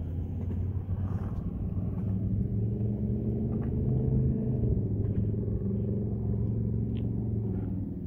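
Wind noise on the microphone, with the steady drone of a vehicle engine that swells to its loudest about halfway through and eases off near the end.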